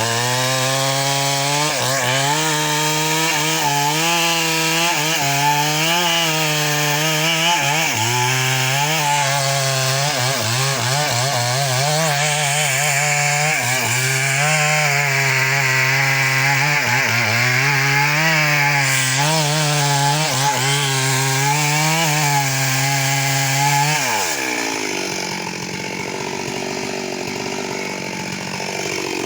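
Stihl MS 382 two-stroke chainsaw at full throttle cutting into mahogany, its pitch wavering as the chain loads up in the wood. About 24 seconds in the throttle is let off and the engine falls back to a lower idle, then revs up again near the end.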